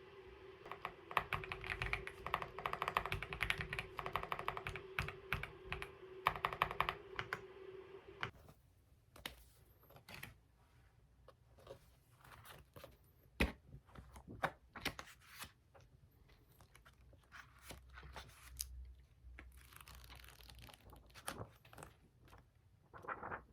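Typing on a computer keyboard: quick runs of key clicks for about eight seconds, then slower, scattered keystrokes.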